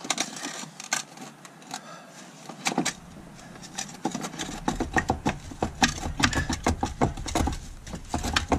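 A new Mud-N-Wheels Torque Series rear differential being worked by hand into its mount on a Can-Am Outlander's frame: an irregular run of metal clicks, clinks and knocks as the housing shifts against the frame and shaft. The knocks come thicker in the second half, over a low rumble.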